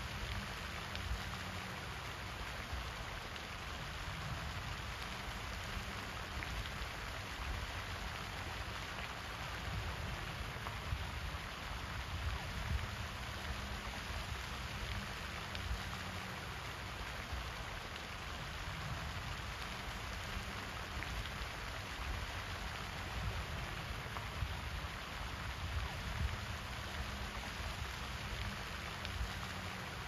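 Pond fountain spray falling back onto the water in a steady splashing hiss, with an uneven low rumble underneath.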